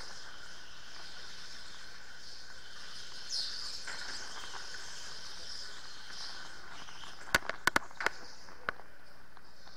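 Electric go-karts heard from onboard: a steady high-pitched whine from the electric motors, with tyres squealing through the corners. A quick cluster of sharp knocks comes about seven to eight seconds in.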